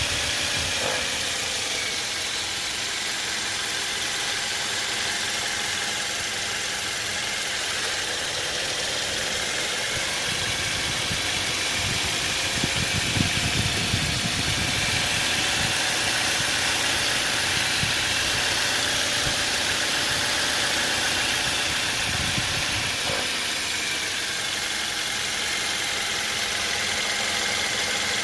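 2014 Toyota Wish engine running steadily at idle, with a thin steady high tone over the engine noise; this is the abnormal engine noise the owner is recording.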